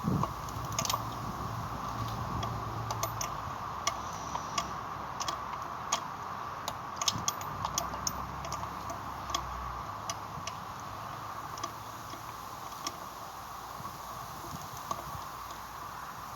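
Scattered, irregular metallic clicks of a hand wrench tightening the bolts on a water pump, thickest in the middle of the stretch and thinning toward the end, over a steady background hum.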